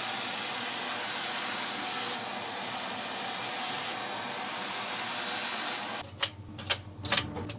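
Handheld vacuum running steadily as it sucks sawdust off a freshly CNC-cut plywood lid, cutting off abruptly about six seconds in. Then come a few sharp clicks and knocks as the hold-down clamps on the CNC bed are handled.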